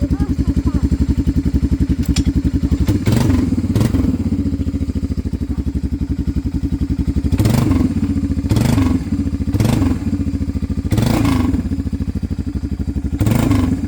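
Honda FourTrax 300 ATV's single-cylinder four-stroke engine running at idle, with about seven short throttle blips that briefly raise its pitch.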